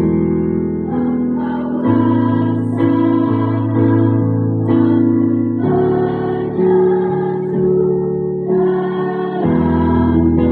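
Choir singing a slow hymn with keyboard accompaniment, held chords changing every second or so.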